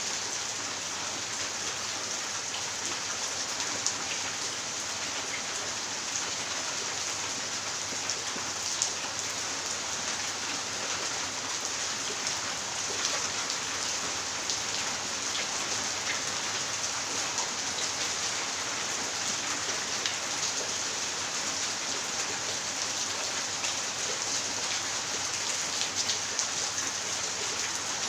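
Steady rain falling on wet tiles and ground: a constant hiss with scattered louder drop ticks.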